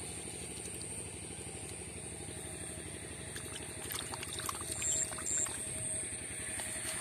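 A steady low engine drone runs throughout, with a few small splashes and clicks of shallow muddy water about four to five seconds in.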